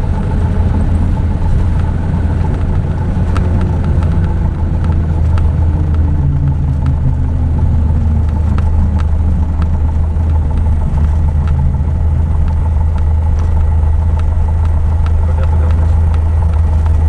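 Piper PA-28 Warrior's single piston engine and propeller running at low power, a steady loud drone heard inside the cockpit as the aircraft rolls on the runway. A fainter whine falls slowly in pitch over the first several seconds, and light ticks are scattered throughout.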